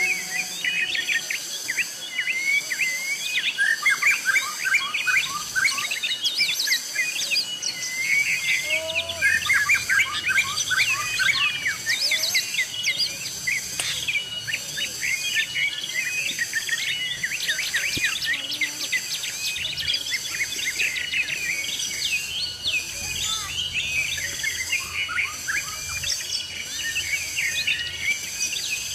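Forest ambience: many birds chirping and trilling in quick overlapping calls, over a steady high insect drone that pulses evenly.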